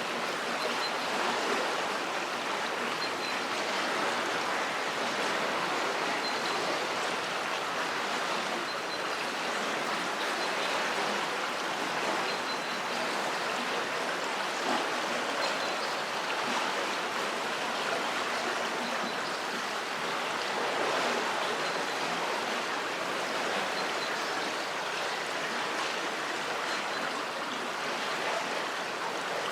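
River water flowing under a bridge: a steady, unbroken rush of moving water.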